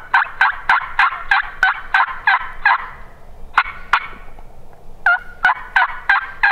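Turkey hen's assembly yelp: a long run of loud two-note yelps, about three a second, pausing twice briefly before picking up again.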